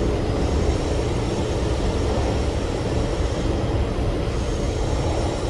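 Steady low rumble and hum inside the carriage of an SMRT C151 metro train.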